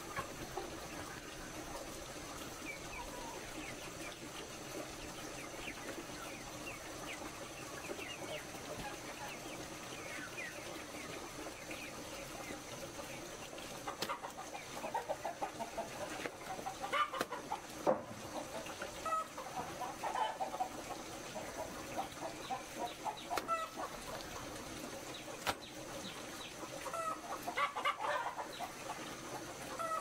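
Chickens clucking in short scattered calls that grow busier in the second half, over a steady background hiss.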